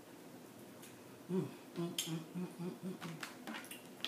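A woman with a mouthful of crab humming in short low pulses, about four a second, starting about a second in. Near the end come sharp clicks and cracks of snow crab shell being broken and pulled apart by hand.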